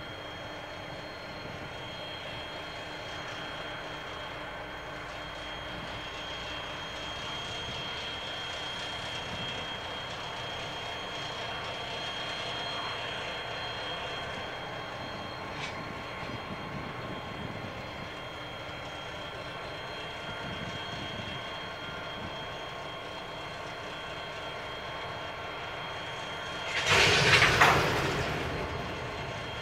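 Pacific National 81 class diesel-electric locomotives running at low power as they creep toward a rake of grain hoppers. Near the end comes a loud bang of the couplers meeting, with a clattering rattle that dies away over about a second. It is a hard coupling impact, a first attempt that has to be tried again.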